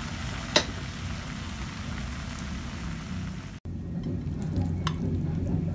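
Shredded young coconut in thick muscovado caramel sizzling and crackling in a hot pan, a steady rain-like hiss, with a sharp click about half a second in. Past the halfway mark the sound cuts off abruptly and comes back as a fainter hiss over a low hum.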